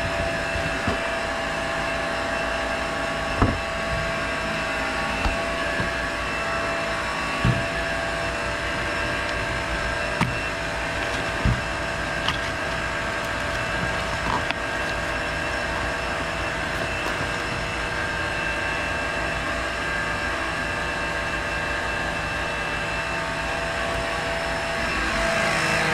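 Electric oil extractor pump running steadily, sucking engine oil out of a Yamaha VX Cruiser HO personal watercraft through a tube. A few light knocks of cardboard packaging and an oil filter carton being handled sound over it.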